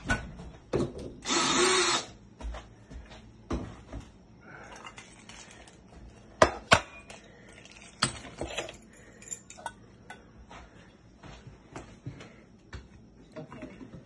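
Tools being handled while a mortise lock is worked on in a wooden door: a run of sharp knocks and clicks, with a short loud burst about a second in and hard clacks a little past the middle.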